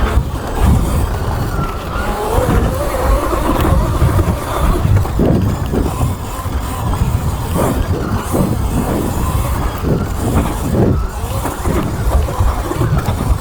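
Sur Ron electric dirt bike on a trail: the electric motor whines, rising and falling with the throttle, over a heavy low rumble of wind and tyres on dirt.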